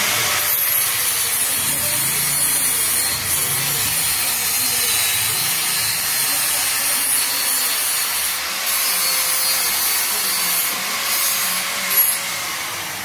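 Power tool grinding steel, a steady hissing grind held on the work, with a faint wavering whine underneath.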